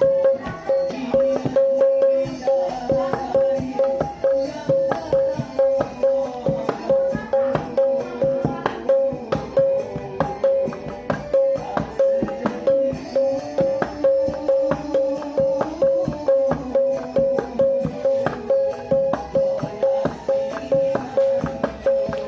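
A paint can beaten as a hand drum in fast kendang-style patterns, with music: a steady pitched pulse about twice a second and a melody.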